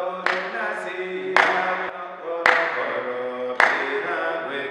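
A worship song sung by voices with hand claps on the beat, four sharp claps about a second apart.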